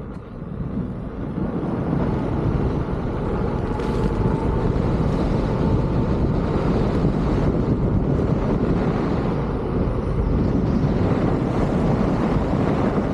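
Wind rushing over the microphone on a moving electric unicycle, a steady low rumble that builds over the first two seconds and then holds.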